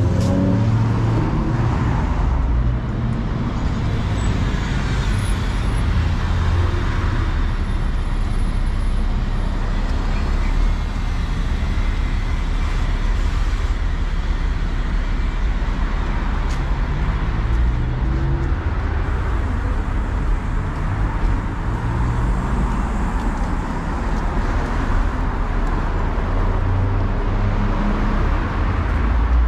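Road traffic on a city street: engines and tyres of passing cars and a city bus, a steady low rumble.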